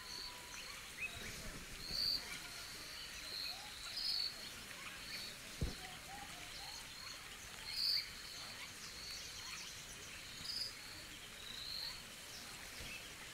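Stream rushing over rocks, a steady hiss, with short high chirps every second or two above it. A single sharp click comes about halfway through.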